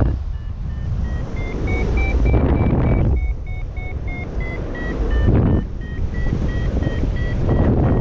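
A paragliding variometer (XC Tracer Maxx) beeping about three short beeps a second, its pitch wavering slightly: the climb tone that signals the glider is rising in lift. Wind rushes over the microphone, swelling and dropping in gusts.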